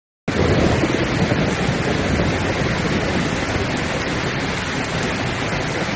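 Hurricane storm sound: heavy rain and wind as a dense, steady rush of noise that cuts in suddenly from dead silence just after the start.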